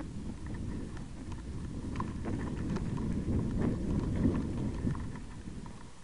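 Mountain bike rolling slowly over a rough, rocky trail, picked up by a bike-mounted action camera: a continuous low rumble from the ground and air on the mic, with scattered light clicks and rattles from the bike. The rumble grows louder about halfway through and eases near the end.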